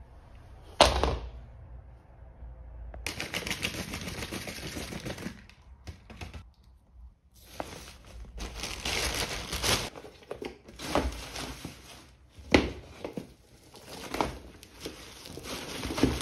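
Plastic bag rustling and gear being handled and packed into a duffel bag, in stretches of rustling broken by a few sharp knocks: about a second in, past the middle, and at the end.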